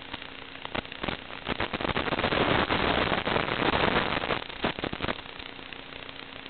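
Crackling static from an analog FPV drone video link, with sharp clicks throughout. About two seconds in it thickens into a dense hiss for a couple of seconds as the video signal breaks up.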